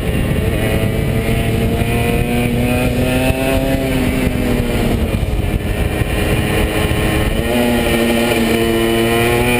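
A 125 cc single-cylinder two-stroke motorcycle engine under way, its revs climbing through the first few seconds, falling back through the middle, and climbing again near the end.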